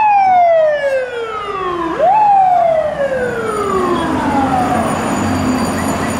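Fire truck siren wailing: a loud tone that falls steadily in pitch, swoops quickly back up about two seconds in, then falls slowly again.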